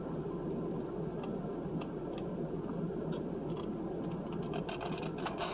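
Close-up eating sounds: scattered crisp clicks and small crunches, growing more frequent near the end, over a steady low background noise.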